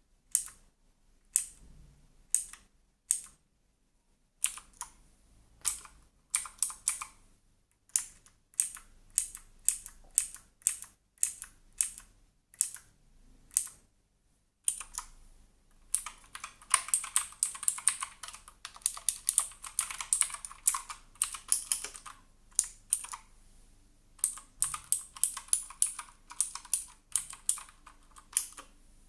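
Redragon Manyu K579 mechanical keyboard being typed on. Separate, unhurried keystrokes come first, then about halfway through a fast run of typing, a brief pause, and another quick burst near the end.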